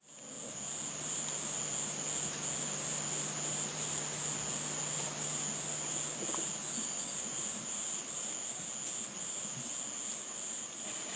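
Steady, high-pitched insect chorus, fading in over the first second.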